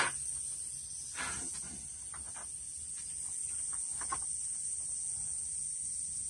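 Steady high-pitched drone of insects, with a sharp knock right at the start, a softer knock about a second in, and a few faint clicks.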